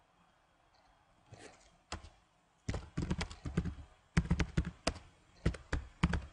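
Computer keyboard typing: quick bursts of keystrokes starting about two and a half seconds in, after a couple of faint clicks.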